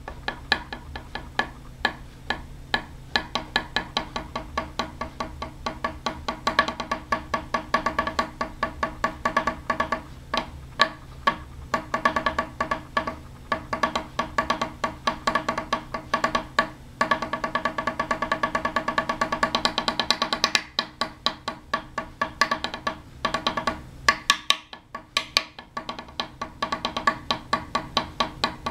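Two pencils drummed rapidly on a wooden tabletop as a mock snare-drum solo: fast rolls of taps with louder accents, the tabletop ringing at a few steady pitches. The drumming breaks off briefly a few times in the second half.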